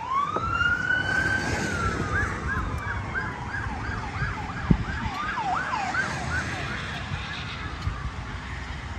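Emergency vehicle siren: a rising wail that switches about two seconds in to a fast yelp, roughly four cycles a second, then fades out near the end. A single sharp knock about halfway through.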